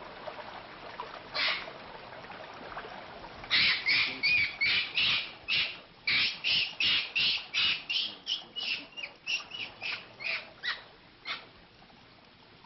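An animal calling: one short call, then from about three and a half seconds in a rapid run of about twenty short calls, roughly three a second, loudest at first and growing fainter and sparser until they stop.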